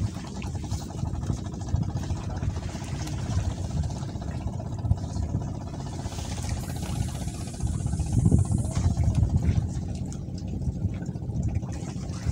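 Wind rumbling on the microphone in gusts over lapping sea water, with a faint steady hum underneath; a hissing gust swells up just past the middle.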